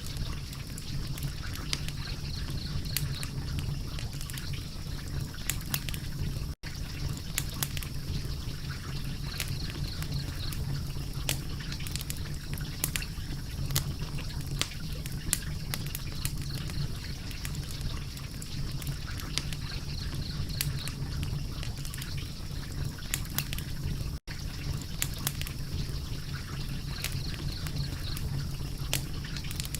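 Wood fire crackling: dense, irregular sharp pops and snaps over a steady low rumble. The sound cuts out for an instant twice.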